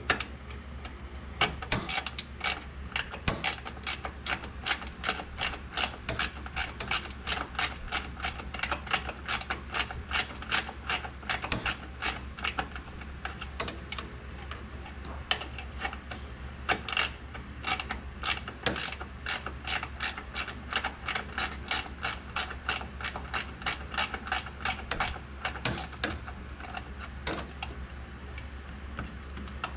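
Ratchet wrench clicking steadily, a few clicks a second, as a 12 mm bolt is backed out.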